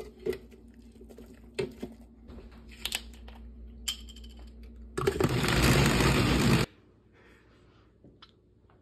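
A few clinks and knocks as cooked pasta is tipped from a metal strainer into a plastic blender jar, then about five seconds in a countertop blender runs for under two seconds, starting and stopping abruptly.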